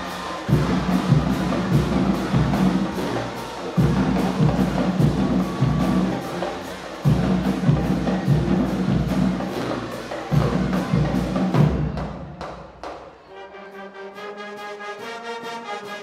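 High school marching band: the drumline plays a loud, driving cadence with heavy bass drum hits. About twelve seconds in the drums drop out and the horns come in with quieter held chords.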